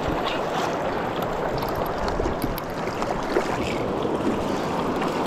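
Shallow mountain river rushing steadily over rocks, with a few faint small splashes and clicks.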